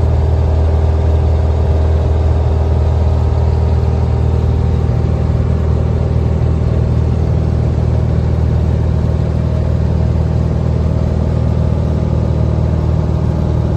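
1965 Cessna 182H's six-cylinder Continental O-470 piston engine running steadily with the propeller turning.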